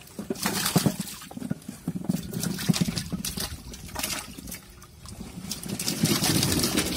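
Sweet potatoes dropped by hand into a large aluminium pot of water, making a run of irregular splashes.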